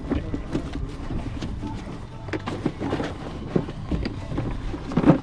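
Steady low rumble of an open fishing boat at sea, with a few light knocks and faint voices.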